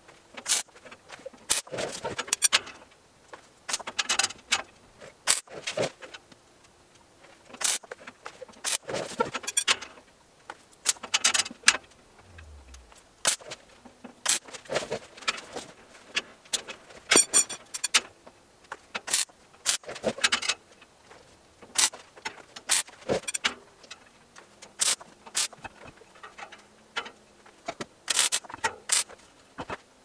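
MIG tack welding on a steel-and-rebar truss beam: a string of short crackling arc bursts, each a second or less, about one every one to two seconds, with sharp metallic clicks among them.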